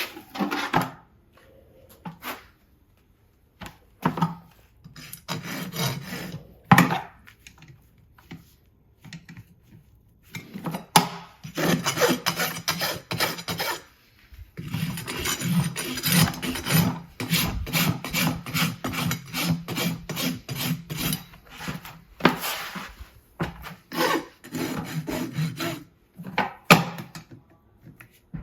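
A farrier's rasp filing a horse's hoof: repeated scraping strokes, some spaced apart and others in fast back-and-forth runs.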